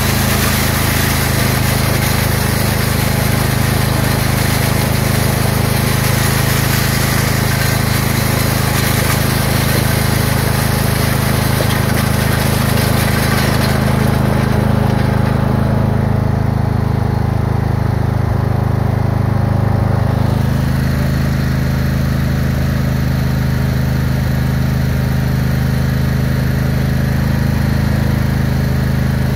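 Craftsman lawn tractor engine running steadily while the homemade steel land plane drags and scrapes across the gravel driveway behind it. About halfway through, the gravel scraping stops and the engine keeps running.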